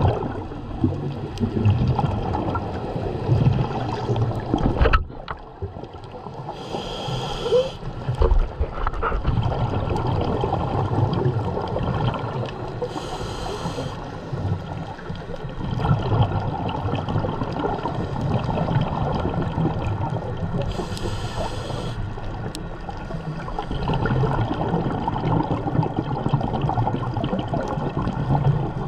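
Scuba diver breathing through a regulator underwater: a short hissing inhale about every seven seconds, with long gurgling bursts of exhaled bubbles between them.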